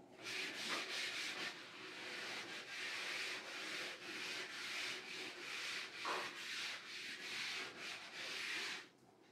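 Pen scratching across paper in a run of short strokes, writing.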